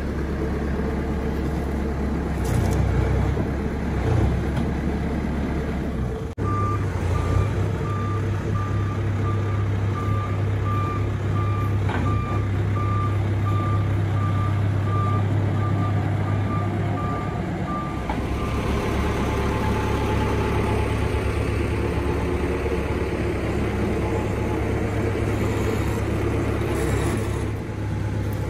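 Telehandler's diesel engine running steadily as it lifts and carries a heavy load. Its reverse alarm beeps at an even pace from about six seconds in, stopping about eighteen seconds in.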